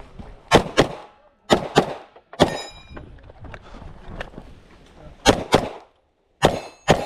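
Airsoft gun shots, sharp cracks mostly in quick pairs about a quarter second apart, five groups in all. One of them, about two and a half seconds in, is followed by a short metallic ring.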